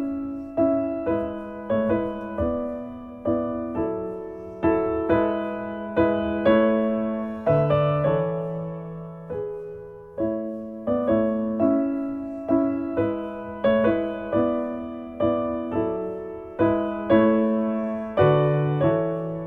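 Background music: a gentle piano melody of single notes struck about twice a second, each ringing and fading before the next.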